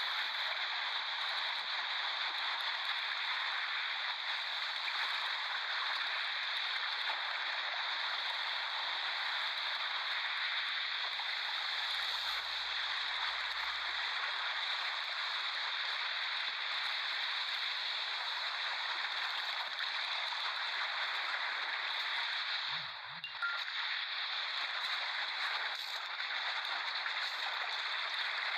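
Ocean surf washing on a beach: a steady rushing hiss with no clear rise and fall of single waves. It dips briefly once, about three quarters of the way through.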